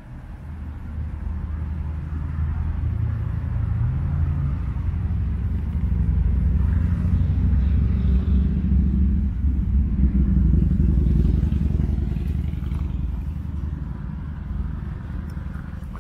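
Low engine rumble passing by, building over several seconds to its loudest around the middle, then fading.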